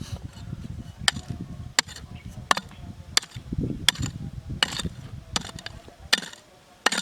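Hand tool striking rock in steady repeated blows, about one every 0.7 seconds, over a low rumble that fades about six seconds in.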